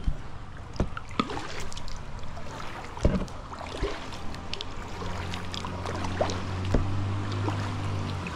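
The engine of a big motor boat approaching, a steady low hum growing louder from about halfway through, over scattered knocks and splashes of a plastic kayak being paddled.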